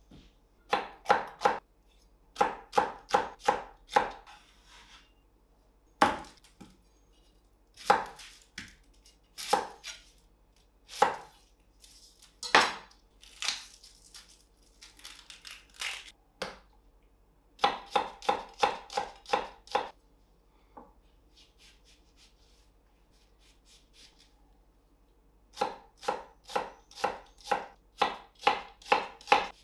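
Chef's knife chopping vegetables on a wooden cutting board, an onion being diced near the end. Quick runs of knife strokes knock against the board at about three to four a second, with single cuts and pauses between the runs.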